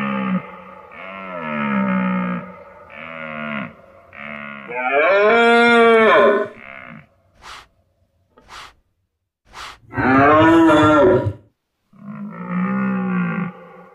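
Red deer calling: a run of pitched calls of about a second each, with two longer, louder bellows about five and ten seconds in. Three short clicks fall between the two bellows.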